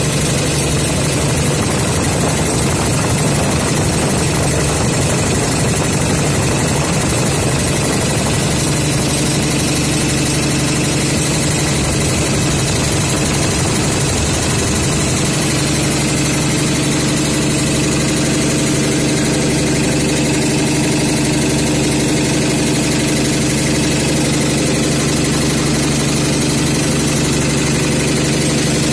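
High-pressure (up to 400 bar) belt-driven piston air compressor running steadily, a loud continuous mechanical clatter over a low, even hum.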